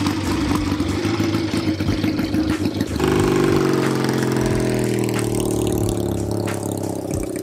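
1952 Triumph hardtail motorcycle's engine running: a fast, even beat of exhaust pulses for about three seconds, then a steadier note that slowly falls in pitch.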